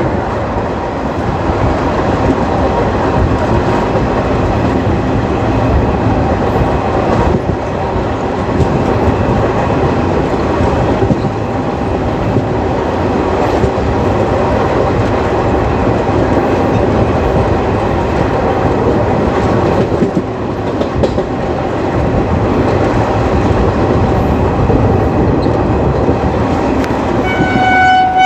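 ICF passenger coaches running steadily along the track: a continuous rumble and clatter of wheels on rail, with an occasional knock from a rail joint. Near the end, the WAP4 electric locomotive's horn starts to sound, a single steady held note.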